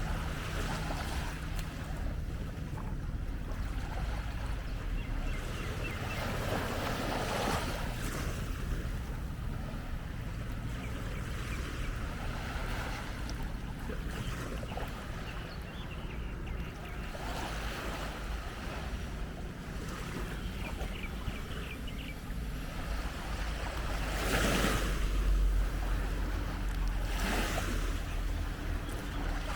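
Small waves washing onto a sandy beach in a continuous hiss, swelling about a quarter of the way in and again near the end, with wind rumbling on the microphone.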